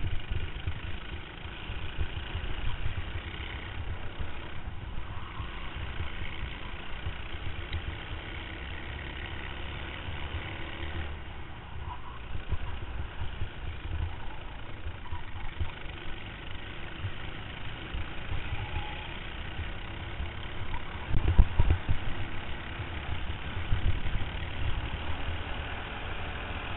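Racing kart engine running at racing speed, heard from an onboard camera, with heavy wind and vibration rumble on the microphone that comes in uneven thumps, hardest in a burst about three-quarters of the way through.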